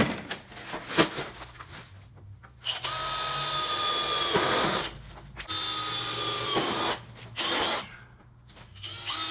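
Cordless drill with a step bit boring holes in a sheet-steel tool tray. It runs in short bursts of a steady whine, each a second or two long, with a brief blip between the later ones and another run starting near the end. Each burst winds down slightly in pitch as the trigger is released. A few handling clicks come just before the first burst.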